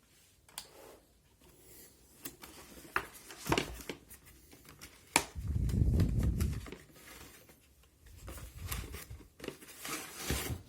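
Packaging being handled and opened: scattered clicks, taps and rustles, with a longer, louder dull handling noise around the middle.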